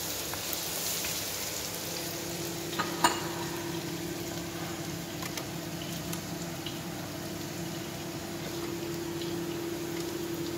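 Sliced shallots sizzling steadily as they fry in hot oil in a wok, with one sharp knock about three seconds in. A steady low hum comes in about two seconds in.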